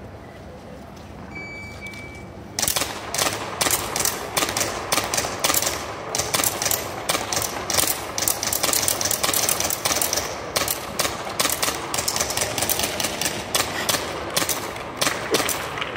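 A shot-timer start beep about two seconds in, then a long, rapid, irregular string of pistol shots echoing around the hall, mixed with bowling-pin targets clattering as they are knocked off their tables.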